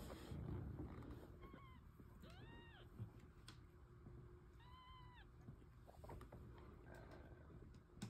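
Newborn kittens mewing faintly: three short, high calls, the last two rising and falling in pitch.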